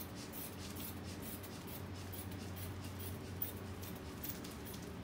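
Aneroid blood pressure cuff being pumped up by hand with its rubber bulb: a quick regular run of short airy hisses, about two squeezes a second, as the cuff inflates toward 200 mmHg.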